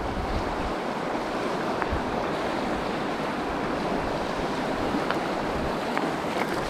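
Fast mountain stream rushing over rocks, a steady wash of water, with a few faint ticks.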